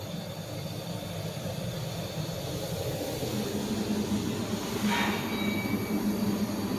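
Scrap metal baler's electric motors and hydraulic pumps running: a steady mechanical hum that slowly grows louder, with a low drone settling in about three seconds in.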